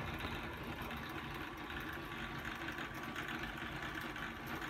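A steady, unchanging low hum with a faint hiss, the background noise of a room.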